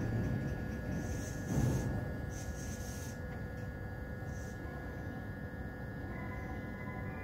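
Quiet background music of held, slowly shifting tones over a low steady rumble of rail traffic, with one swell in the rumble about a second and a half in.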